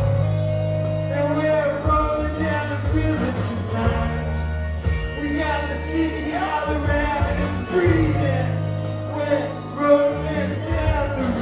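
Live band music: a man sings into a microphone over long, steady low bass notes and drums.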